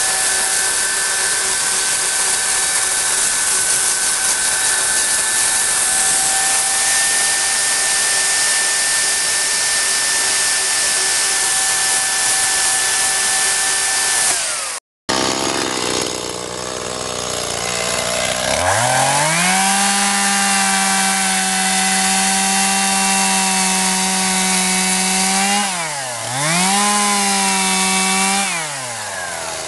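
Two chainsaws. A Dolmar chainsaw runs at full throttle while its bar cuts into a log to hollow it out, ending abruptly at a cut about halfway through. Then a Stihl MS211 two-stroke chainsaw revs up and holds a steady high pitch, easing off the throttle twice briefly near the end.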